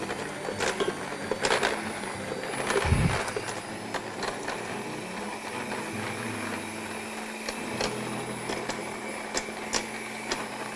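Electric hand mixer running steadily, its beaters working flour into a thick biscuit dough in a stainless steel bowl, with scattered clicks against the bowl and a low thump about three seconds in.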